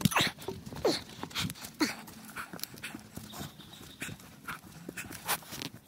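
Footsteps on a leaf-strewn dirt trail with heavy panting breaths from someone hauling plywood over a long walk. The breaths and steps are loudest in the first couple of seconds.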